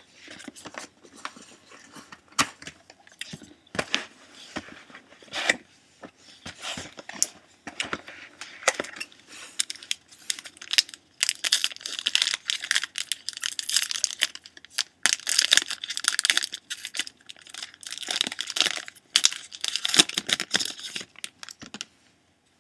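Trading card box and pack packaging being torn open by hand, with a steady run of crinkling, ripping and sharp crackles, busiest and loudest in the second half.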